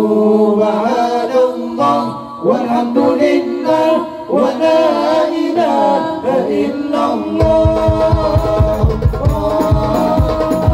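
Male voice singing a slow, melismatic Arabic suluk with no accompaniment. About seven seconds in, the hadrah drums come in with a quick, even beat under the singing.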